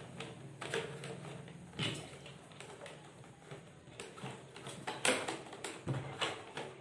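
Insulated wires being handled and pushed into plastic junction boxes: a few short clicks and rustles scattered over a faint steady low hum.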